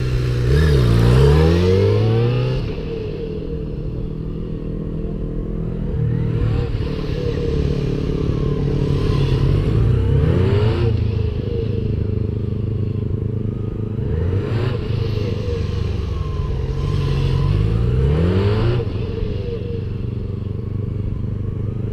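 Motorcycle engines running as the bikes circle a cone and pass close by again and again, the pitch rising and falling with each pass and each twist of the throttle, about five passes in all.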